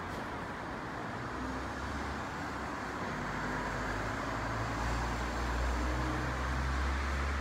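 Street traffic noise, with a motor vehicle's low engine rumble growing louder over several seconds and at its loudest near the end.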